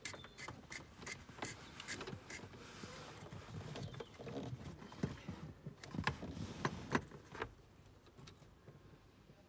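Hands working a blue flexible mains cable and plastic socket fittings: irregular small clicks, taps and rustling, with a few sharper knocks around six to seven seconds in.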